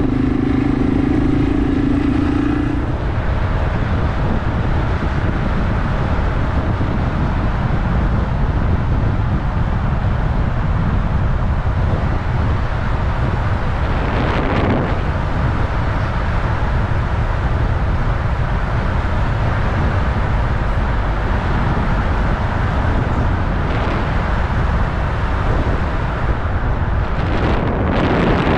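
Yamaha TW200 single-cylinder motorcycle under way, its engine note buried in heavy wind rush on the microphone. The engine note is clear for the first few seconds, then sinks into the rush. Two brief swelling whooshes come about halfway through and near the end.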